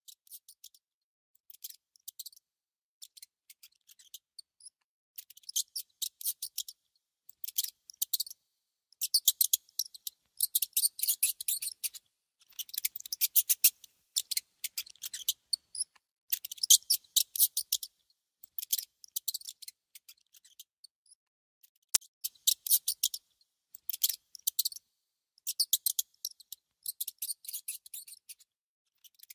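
A mouse gnawing and nibbling on food: runs of rapid, tiny, high crunching clicks in short bursts with brief pauses between them.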